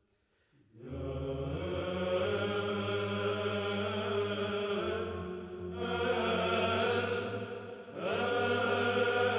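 Slow chanted music as a soundtrack, with long held notes over a low sustained drone. It comes in about a second in, and fresh phrases swell around six and eight seconds in.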